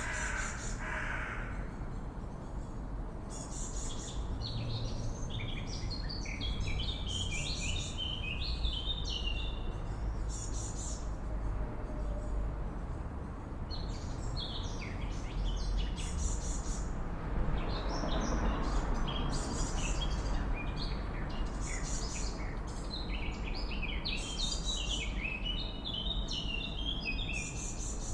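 Swallows twittering in repeated bouts of quick, stepped chirp runs, over a steady low rumble. A brief swell of rushing noise rises and fades a little past the middle.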